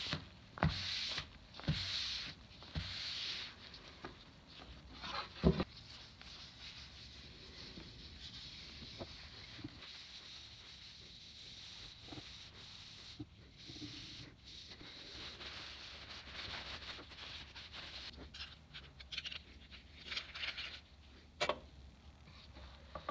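A cloth rag wiping and rubbing a warm oil-and-beeswax finish into bare wood, a soft swishing scrub, with a few light knocks of wood on the bench.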